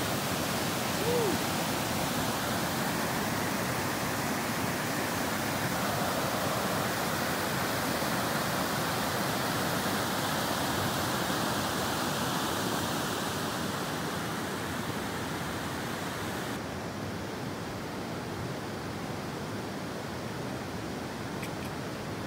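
River water rushing over shallow rocky rapids, a steady rushing that eases off somewhat in the second half.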